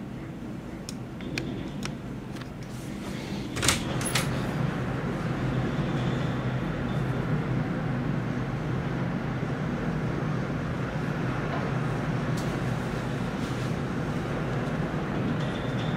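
Cat 315CL excavator's diesel engine running steadily as the machine crawls, growing a little louder after about four seconds. A few light clicks come early on, and two sharp metallic clanks about four seconds in.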